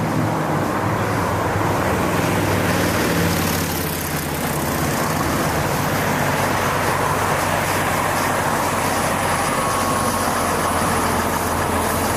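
Steady street traffic noise at a busy city intersection: vehicle engines running and cars passing.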